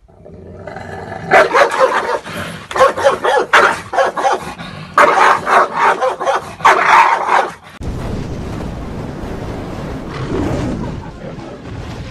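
Dogs barking and snarling in a fight, in loud rapid bursts that cut off abruptly about eight seconds in, after which a steady low sound takes over.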